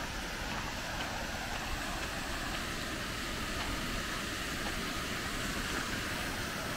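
Tiered cascade fountain splashing steadily, its jets and falling water making an even rushing hiss.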